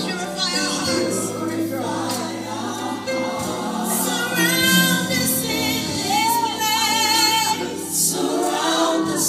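Gospel song playing: a choir singing with a band behind it, sustained bass notes under the voices.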